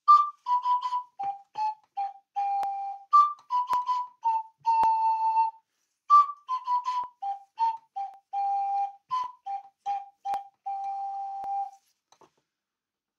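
Double ocarina playing a short, simple tune of clear whistle-like notes stepping down and back up, the same phrase played twice with a brief break near the middle.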